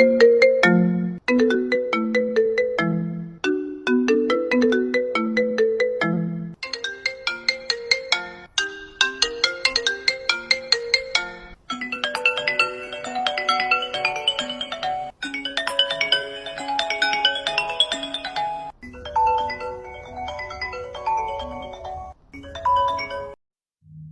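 iPhone ringtones played back to back, about eight short clips of a few seconds each, every one cut off abruptly before the next begins. The first few are light tunes of quick, evenly struck notes; from about halfway through the clips are fuller and denser.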